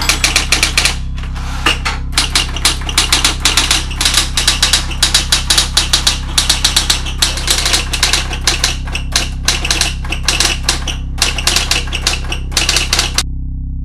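Electric typewriter typed on fast, with quick runs of key strikes over a steady low hum. The typing stops near the end while the hum carries on.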